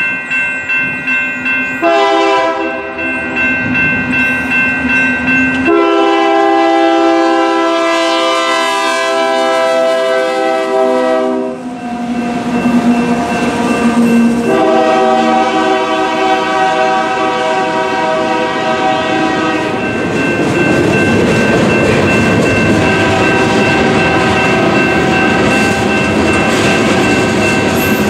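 Freight locomotive's air horn sounding several long blasts for the grade crossing, over the steady ringing of the crossing-signal bell. About two-thirds of the way in the horn stops, and the freight cars rumble and clatter over the crossing.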